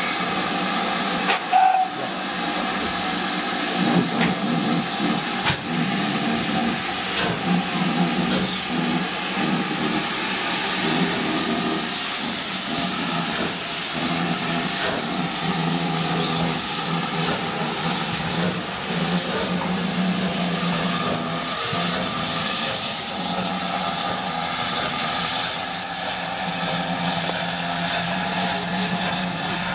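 A steady, loud hiss with a low hum beneath it and a few sharp knocks in the first seven seconds or so.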